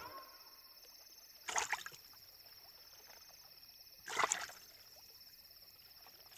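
Quiet night-time outdoor ambience: a faint, steady high drone of insects, broken three times by a short, soft swish about every two and a half seconds.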